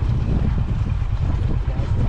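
Wind buffeting the microphone with a loud, uneven low rumble, as from a moving vehicle.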